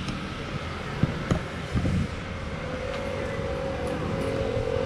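Street traffic with scooter and car engines passing, a steady engine tone coming in about halfway through. A few sharp clicks about a second in from a knife cutting through pineapple rind.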